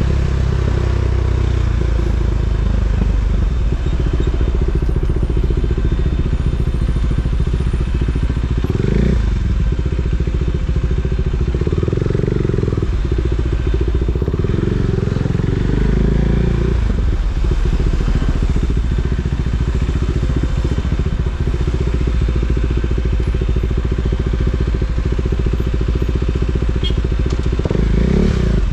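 KTM 390 Duke's single-cylinder engine running under way, its revs rising and falling a few times: once about nine seconds in, twice or so in the middle, and once more near the end.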